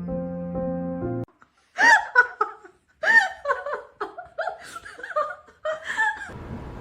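Soft background music that cuts off about a second in, then a run of high-pitched, laugh-like vocal bursts, each rising and falling in pitch.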